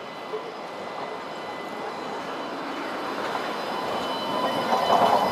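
Alstom Citadis 305 tram running past close by on its rails: a steady rolling rumble with a thin, steady whine, growing louder as it comes alongside.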